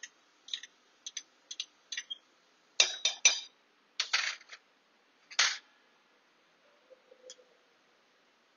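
Metal spoon clinking against metal kitchenware. A quick run of light taps comes first, then a few louder clinks between about three and five and a half seconds in.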